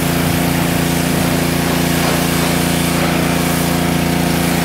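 Small-engine pressure washer running steadily at a constant pitch, with the hiss of its high-pressure spray hitting the car.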